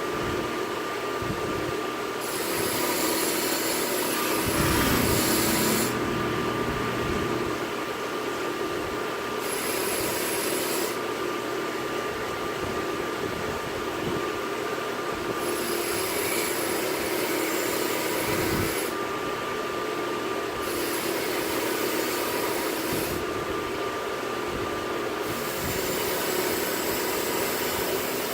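Belt grinder running steadily with a constant motor whine, while a hissing grind comes and goes in passes a few seconds long as a steel knife blade is pressed to the belt and lifted off.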